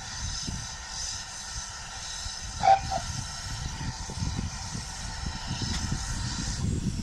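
Great Western Railway Small Prairie 2-6-2 tank engine working a passenger train at a distance: a steady low rumble with faint, recurring steam hiss. A little before halfway comes a short, loud two-part tone, the loudest thing heard.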